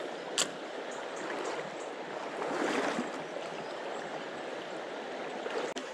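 Steady rush of a fast-flowing river current, with one sharp click about half a second in.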